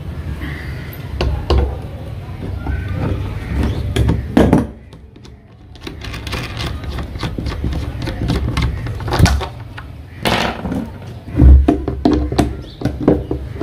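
Nuts and bolts being undone from the flange of a fibreglass stool mould: scattered clicks, knocks and clinks of metal parts and handling, with a short lull about five seconds in.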